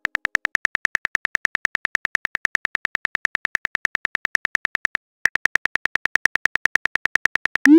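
Phone-keyboard typing clicks, a rapid even ticking of about eight a second that stops briefly about five seconds in. It ends in a short rising swoosh as the message is sent.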